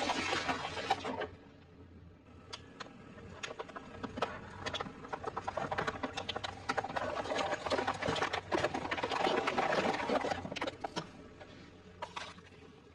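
Plastic bottles crackling and crunching under a car tyre, with many sharp clicks; the crackling is loudest in the first second and again through the middle.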